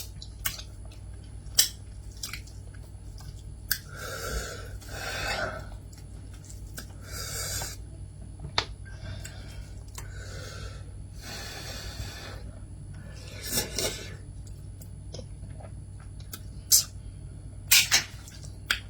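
A person eating close to the microphone: wet chewing and smacking, with scattered sharp clicks and several longer, noisy wet mouthfuls, over a steady low hum.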